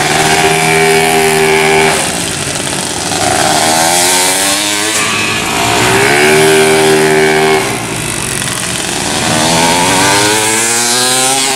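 Racing automatic-scooter engines revving high on the track. The pitch holds steady for a second or two, drops, then climbs again, several times over as the bikes go by.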